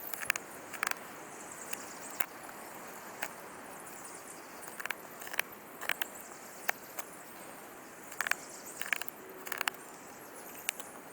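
Victorinox Soldier's wavy-edged knife blade carving a notch in hard wood: irregular short scrapes and snaps as the blade bites and catches, in small clusters, over a steady background hiss.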